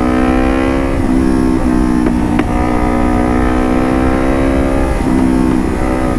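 Motorcycle fitted with an aftermarket DX carbon exhaust accelerating under way, the engine note climbing and dropping back several times as it shifts up, over a low wind rumble.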